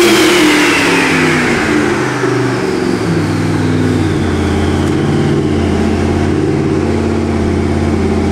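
Twin-turbo 632-cubic-inch big-block Chevy V8 on an engine dyno, coming off the end of a full-power pull. Its revs fall from about 5,600 rpm over the first three to four seconds, then settle to a steady run near 2,000 rpm, while a high whine slides down alongside.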